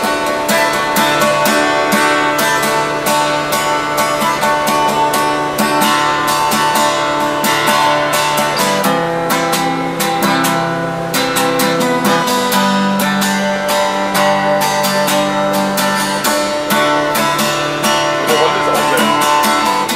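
Acoustic guitar strummed in a fast, even rhythm, the chord changing every few seconds.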